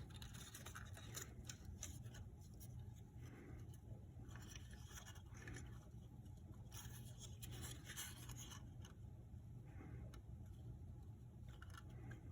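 Faint rustling, scraping and light taps of cardboard pieces being handled and adjusted.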